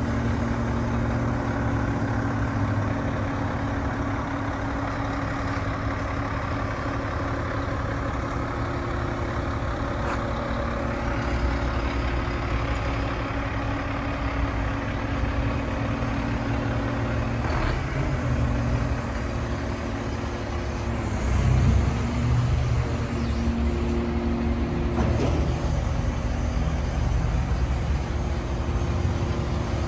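Mack MRU613 garbage truck's diesel engine idling steadily, with a couple of short sharp sounds and a louder low thump about two-thirds of the way through.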